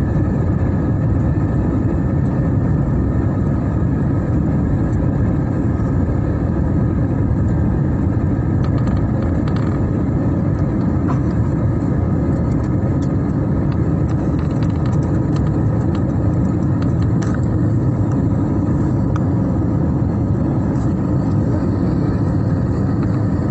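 Jet airliner cabin noise in flight: the turbofan engines and rushing air make a loud, steady low rumble, with a faint steady whine above it.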